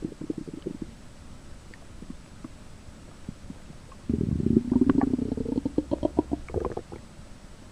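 Hungry stomach growling: a short low gurgle at the start, then a louder, longer growl from about four seconds in that rises in pitch and breaks into a rapid, uneven burbling before it stops.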